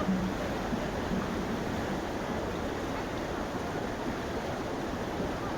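Steady rushing water from a spring-fed stream or cascade, an even hiss without change.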